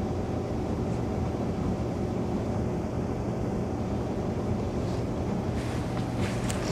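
Battery-powered ride-on toy jeep's electric motor and gearbox humming steadily as it drives across grass. In the last second or so, crackling over dry grass joins the hum.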